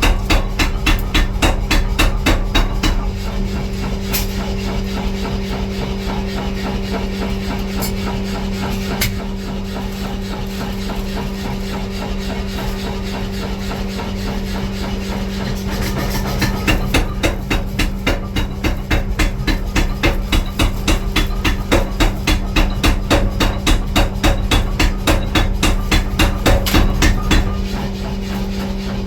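Rapid, evenly paced hammering on steel during the forging of a masonry trowel, over a steady machine hum. The strikes are loudest for the first few seconds and again through the second half, softer in between.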